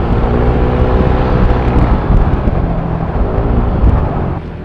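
Motorcycle engine running through a modified, fiber-packed muffler while riding, its pitch rising and easing off slightly over a steady low rumble.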